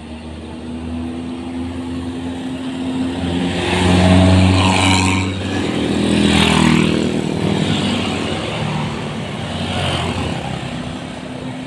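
Large vehicles, most likely buses, driving past one after another. The engine and tyre noise swells to its loudest around four to seven seconds in, then fades.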